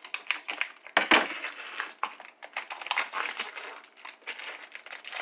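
Plastic vacuum-pack wrapping of a kielbasa crinkling and crackling as it is slit with a knife and peeled off the sausage, with a sharp knock about a second in.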